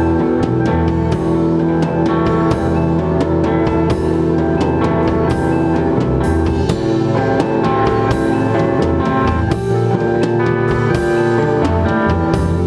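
Instrumental rock band playing live: electric guitars holding sustained notes over a Pacific drum kit with Sabian cymbals, with frequent drum and cymbal hits throughout.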